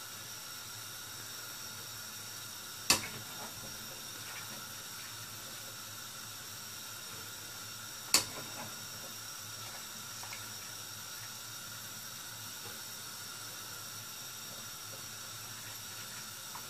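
Water boiling steadily in a pan while par-boiled rice is scooped out of it with a metal skimmer. There are two sharp metal knocks, the first about three seconds in and the second about eight seconds in, as the skimmer strikes the cookware.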